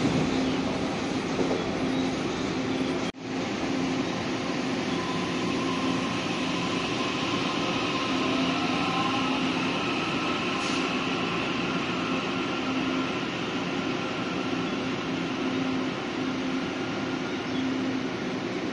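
Taiwan Railway EMU600 electric multiple unit pulling out of the station: a steady running noise, with a motor whine rising in pitch as it picks up speed. The sound briefly cuts out about three seconds in.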